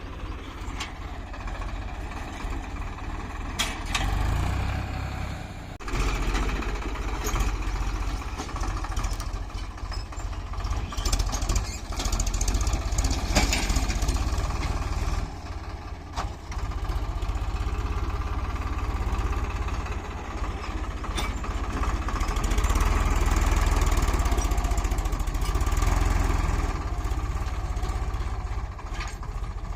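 Eicher 557 DI tractor's diesel engine running continuously while ploughing, its level swelling and dropping several times, loudest a little past the middle.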